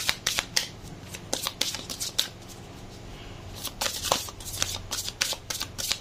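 Deck of tarot cards being shuffled by hand, the cards tapping and slapping together about four times a second, with a pause of about a second in the middle before the shuffling picks up again.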